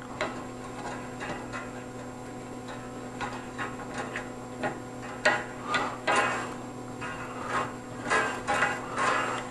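Small irregular clicks and light rattles of metal parts on a scissor-type microphone boom arm being handled and screwed together, coming more often in the second half, over a steady low hum.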